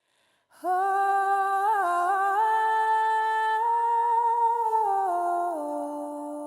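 A woman humming a slow wordless melody, unaccompanied, starting about half a second in and stepping down to lower, softer notes near the end.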